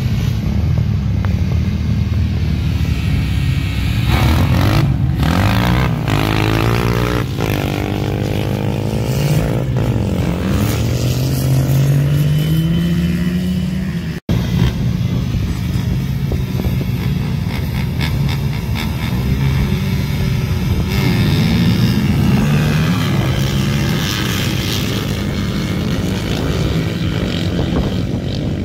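Quad and dirt-bike engines revving and accelerating hard in sand drag races, their pitch climbing over several seconds. After a cut about halfway, another run of racing engines with rising pitch.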